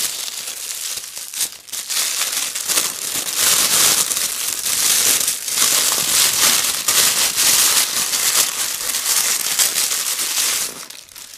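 Plastic packaging crinkling and crackling continuously as a cordless phone handset is unwrapped, stopping shortly before the end.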